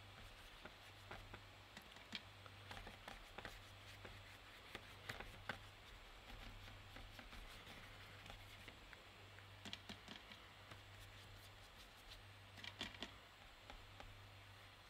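Near silence: soft scattered taps and brush strokes of a paintbrush working watercolour paint on paper and clicking in a metal paint tin, in a few small clusters, over a faint low hum.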